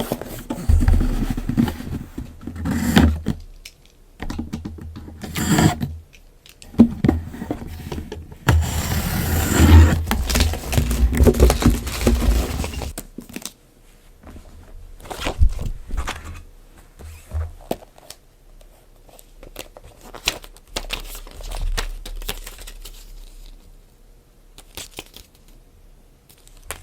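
Unboxing a book by hand: plastic packaging crinkling and tearing, with items scraping and being handled in irregular bursts. The longest and loudest stretch of tearing and rustling comes around the middle.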